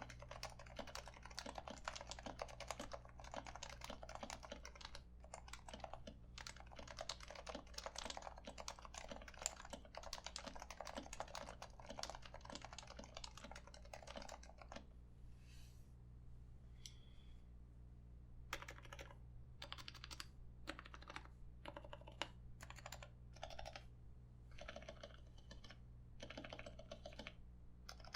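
Typing on a Happy Hacking Keyboard Professional 2 with 45 g Topre switches, its sliders and stabilizers lubed and the keys silenced with Deskeys #3 rings, giving soft, muted keystrokes. Fast continuous typing runs for about fifteen seconds, stops for a few seconds, then gives way to slower, scattered keystrokes.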